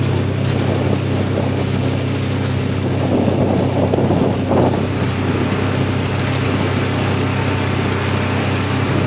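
Vehicle engine running with a steady low drone while driving down a rough ridge-top trail, with a louder rough, rattling patch about three to four and a half seconds in.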